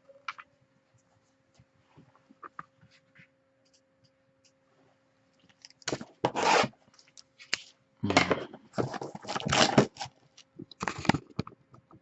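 Packaging being torn open and crinkled by hand, typical of plastic wrap coming off a trading-card box, in rough rustling bursts about halfway through and again near the end, with faint handling ticks before them.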